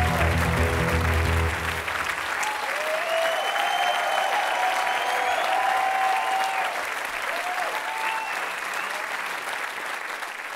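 The song's final chord rings out and stops about two seconds in, then a theatre audience applauds with a few cheers, the applause dying down near the end.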